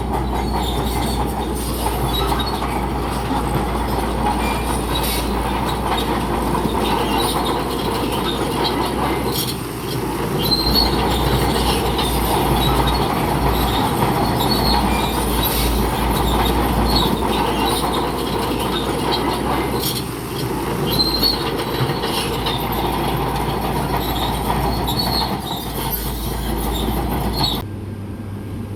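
Crawler bulldozer working: its diesel engine drones under the squeal and clank of its steel tracks, with short high-pitched squeaks again and again. The sound changes abruptly to a quieter hum near the end.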